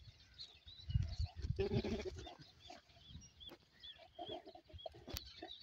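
A goat bleats about one and a half seconds in, and again briefly near the end, with small birds chirping repeatedly in the background.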